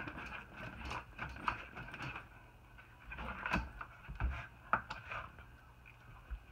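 A pet animal burping, a series of short belches among small clicks and bumps.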